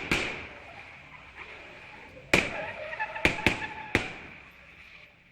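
Gunshots: one at the start, then after about two seconds four more in quick succession, each leaving a long echoing tail.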